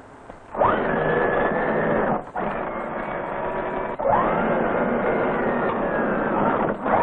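Emerson turret's electric drive motors whining as the turret slews. The whine rises in pitch, holds steady, then cuts off about two seconds in; it starts again about four seconds in, stops briefly near the end and starts once more.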